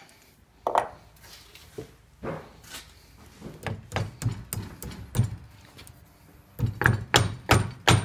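Hammer tapping the trimmed cotter pin on a tractor front hub's castle nut, bending its legs over: a series of sharp metal knocks, spaced out at first and then a quicker run of about five near the end.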